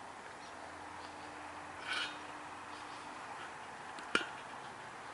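Hard plastic antenna parts rubbing and scraping as the feed is pushed into the dish mount, with one sharp click a little after four seconds.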